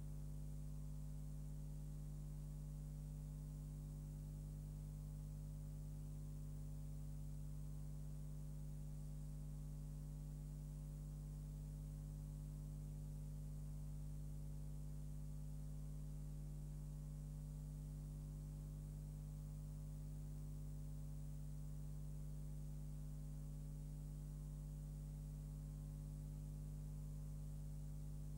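Steady electrical mains hum with hiss and no other sound, unchanging throughout: the noise floor of a transfer of a silent home-movie film with no soundtrack of its own.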